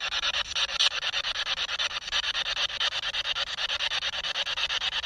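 SB7 spirit box sweeping rapidly through radio stations: a choppy radio static that pulses about ten times a second. It is being run to listen for a reply to a question just put to the spirits.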